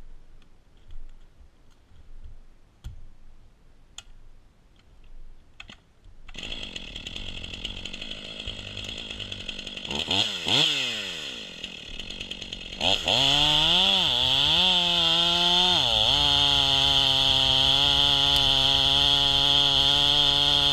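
A few light handling clicks, then the Stihl 500i chainsaw, a fuel-injected two-stroke, starts about six seconds in and runs at a lower speed. About two-thirds of the way through it revs up sharply and wavers. It then holds a steady high pitch at full throttle as the chain cuts through an oak log.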